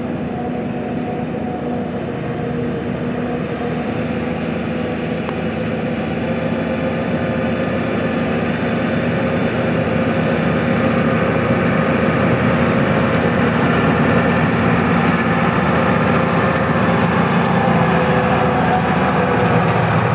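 Massey Ferguson 7620 tractor's six-cylinder diesel engine running steadily under load while pulling a five-furrow plough, growing gradually louder.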